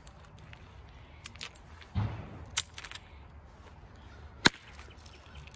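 Flintknapping: hard strikes on a flint core to knock off flakes for a long flat blade. A dull thud about two seconds in and a sharp crack about four and a half seconds in, the loudest, with a few lighter clicks between.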